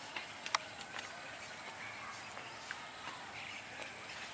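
Insects buzzing steadily at a high pitch, with a few faint bird chirps and a sharp click about half a second in.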